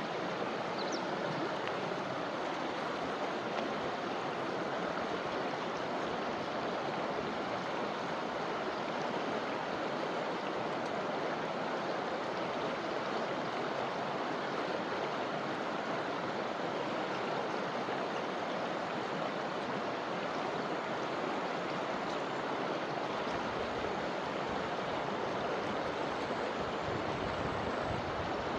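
Forest river flowing over rocks and branches: a steady, even rush of water. A low rumble joins in for the last few seconds.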